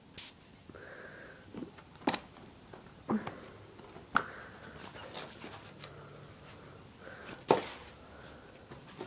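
Border collie puppy's soft, puffing breaths and sniffs, with a handful of sharp taps and knocks, the loudest about seven and a half seconds in.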